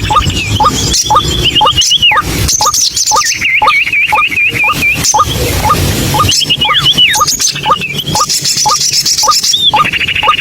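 White-breasted waterhen (ruak-ruak) calling: a short rising note repeated about two or three times a second, with higher wavering trills and falling notes layered over it.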